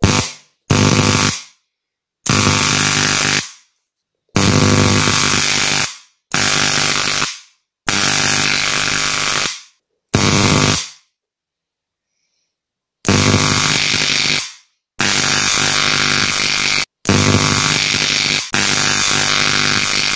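High-voltage arc from a car ignition coil driven off mains through a phase-fired controller: a loud, harsh electric buzz. It comes in about eleven separate bursts of one to two seconds each, every one starting abruptly and fading or cutting off, with a longer pause a little past the middle.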